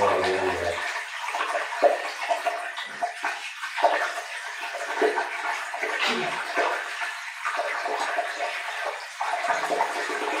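Water poured slowly into an Indian squat toilet pan, running and splashing down into the drain to wash out a P-trap blocked with cement debris.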